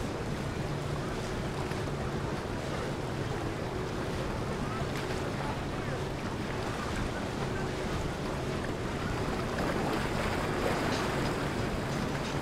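Motor boats passing on open water: steady wash of wake and waves with a low engine hum in the first half, and wind buffeting the microphone.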